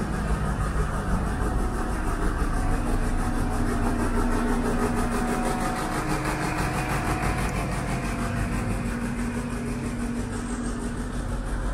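Steady hum of city street traffic, with a vehicle engine idling and a faint steady tone that comes in during the middle stretch.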